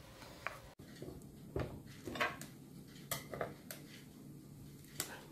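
A few light clicks and knocks, spaced out, from kitchen utensils and hands working at an electric waffle iron.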